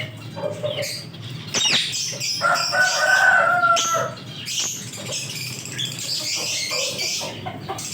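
Lovebirds chattering with shrill high chirps throughout. A rooster crows once in the middle, a long drawn-out call of about a second and a half.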